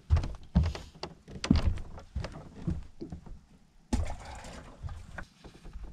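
Knocks and thumps of handling on a fiberglass bass boat deck while a caught crappie is dealt with, with a heavier bump about four seconds in followed by a short rush of noise.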